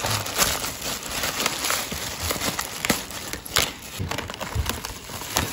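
Plastic packaging crinkling and rustling as it is handled: a torn poly courier bag and a clear plastic bag with bubble wrap, with many short sharp crackles throughout.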